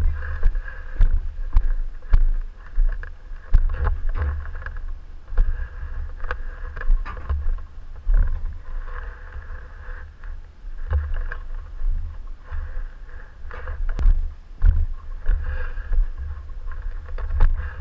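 Irregular low thumps and rustling of a body-worn camera moving with the wearer's steps and gear, with scattered small clicks.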